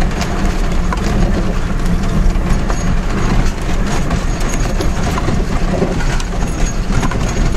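Heard from inside a Jeep's cabin on a rough, sandy dirt road: the engine runs steadily under a low rumble, with constant small rattles and knocks from the vehicle jolting over the bumps.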